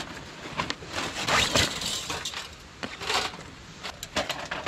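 Sheet-metal panels of a Winnerwell folding tent stove clinking and knocking as it is lifted out of its carry bag and unfolded, with handling rustle in between.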